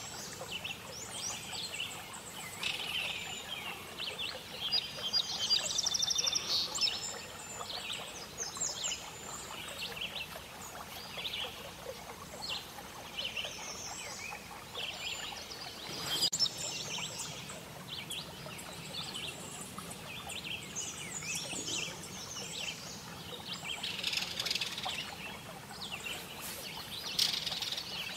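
Many small birds chirping and singing, with short high calls and trills overlapping, over a soft outdoor background hiss.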